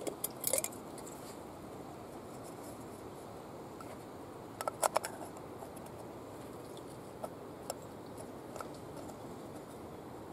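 Small metal kitchen gear being packed by hand: a metal tin knocking against the inside of a metal cup in a quick run of light clinks, with a few sharp taps before and fainter taps after.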